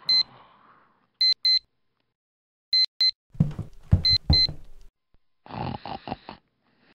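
Digital alarm clock beeping in pairs of short high beeps, four pairs about a second and a half apart, while low thumps and rustling come as a hand fumbles at the clock and slaps it. The beeping stops after the fourth pair, and a brief muffled sound follows near the end.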